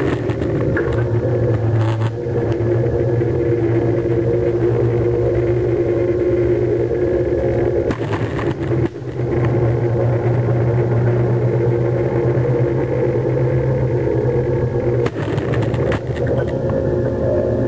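An engine running at a steady speed, a constant low drone, with a few brief crackles and one short dip about halfway through.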